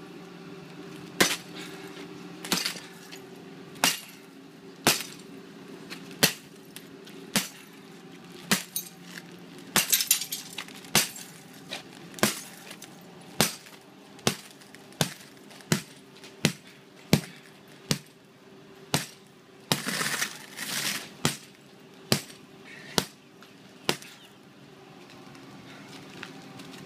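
Claw hammer striking a panel of impact-rated glass again and again, sharp blows about a second apart, with the cracked glass crunching and clinking in a couple of denser spells. The glass breaks but stays intact in its frame.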